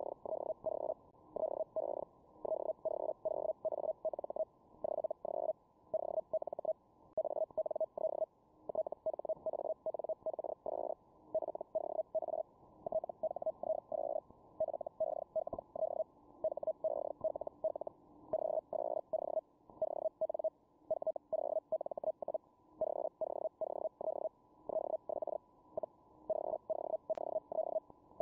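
Feld Hell amateur radio signal on the 40 m band heard through a shortwave receiver: a tone near 600 Hz keyed rapidly on and off in short runs, one run per character being sent, with brief gaps between words. Receiver hiss fills the gaps, all cut off above about 1 kHz by the receiver's filter.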